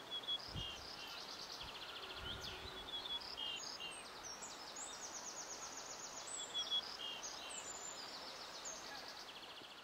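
Small birds chirping, a run of short high calls and rapid buzzy trills that repeat throughout, over a steady background hiss.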